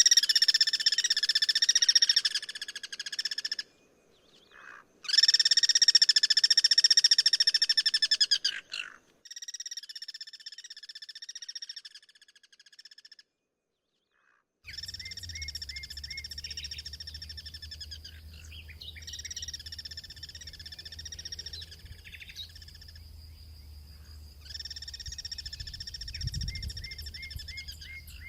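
Guira cuckoos calling: long, harsh, rattling calls in several bouts, loudest in the first nine seconds and fainter later. About halfway through the sound cuts out briefly, and after that a low rumble runs under the calls.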